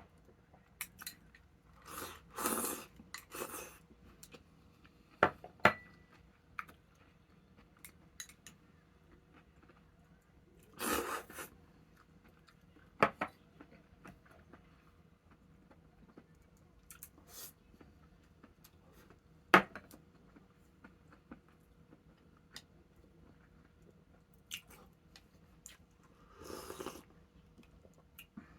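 A person eating a meal at the table: scattered clicks of chopsticks and tableware against dishes, with chewing and a few noisy bursts about a second long.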